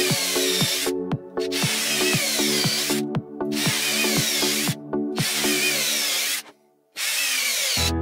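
Cordless drill-driver running into a plywood board in repeated runs of one to two seconds, stopping briefly between them, with its motor pitch wavering. Background music with a steady beat plays underneath.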